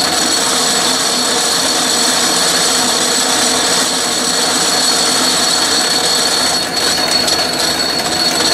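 Atlas metal lathe running in back gear, loud, with a steady high whine from the gearing, while an internal threading tool takes a light spring cut in a steel bore.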